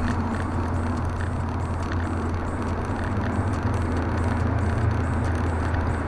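Cabin noise of a Mazda car cruising through a road tunnel: a steady low engine drone with an even rush of tyre and road noise, and no gear change or sharp event.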